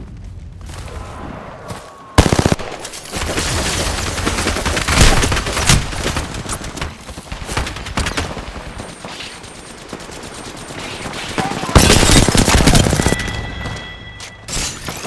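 Video game gunfire: rapid automatic fire in dense bursts, starting suddenly and loudest about two seconds in and again near the end.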